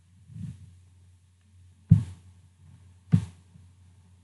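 A soft thump, then two sharp, dull thumps about a second and a quarter apart, over a steady low hum.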